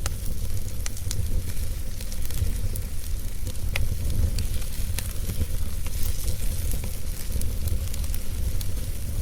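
Wood fire burning in a fireplace, with sharp crackles and pops at irregular moments over a steady low rumble and hiss.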